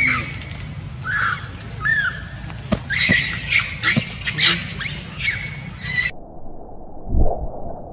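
Young long-tailed macaque screaming in repeated shrill, squealing cries, distress calls as an adult pins it to the ground. The screams cut off abruptly about six seconds in, and a low thump follows a second later.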